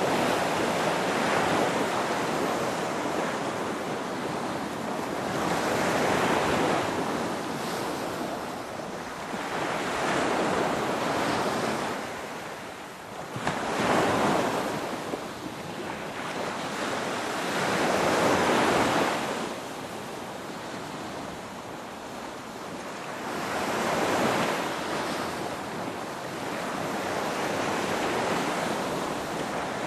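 Ocean waves breaking and washing in, the surf swelling and ebbing every few seconds, with the biggest surges about 14 and 18 seconds in.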